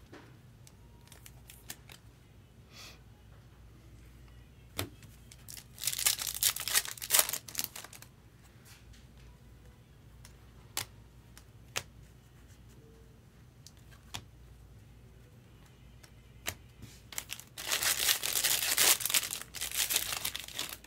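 Trading-card pack wrapper being torn open and crinkled, in two bursts about six seconds in and again near the end, between scattered light clicks and taps of cards being handled.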